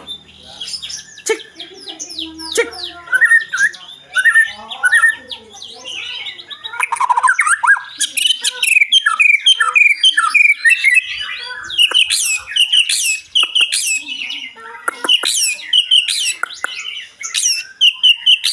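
White-rumped shama singing a long, varied song of rapid chirps, sweeping whistles and trills, packed with 'isian', the other birds' phrases it has learned to mimic.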